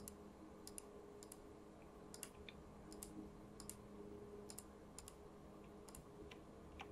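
Faint computer mouse clicks at irregular intervals, placing the points of a straight-edged selection outline, over a faint steady low hum.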